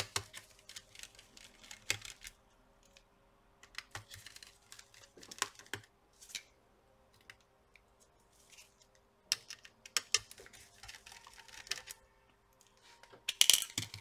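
Small scattered clicks and scrapes of a precision screwdriver and tiny screws being worked out of a laptop motherboard, along with light handling of small metal and plastic parts. A louder clatter comes near the end.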